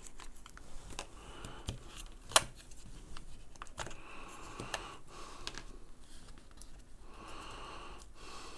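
Small plastic clicks and taps as the Timekettle M2 translator earbuds are lifted out of their plastic charging case and the case is handled, with one sharper click about two and a half seconds in.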